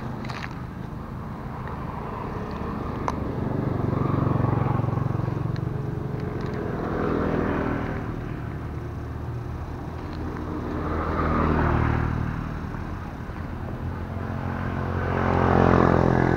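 Engines of motor vehicles going past, a steady hum that swells louder and fades away about four times.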